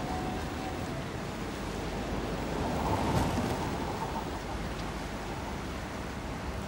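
Steady rumbling wash of a Hurtigruten coastal ship under way: wind and water noise over a low engine hum, swelling slightly about three seconds in.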